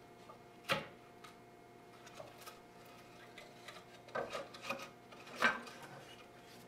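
Carved wooden pieces, a cherry-and-holly laminate plaque and its offcut, knocking and rubbing against each other and the workbench as they are handled. There is a sharp wooden knock about a second in, then a cluster of clacks and scrapes between about four and five and a half seconds.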